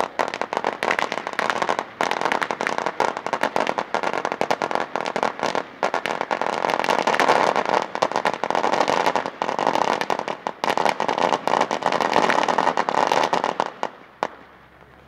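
A 500-count string of firecrackers going off in a rapid, continuous volley of pops that stops abruptly about fourteen seconds in.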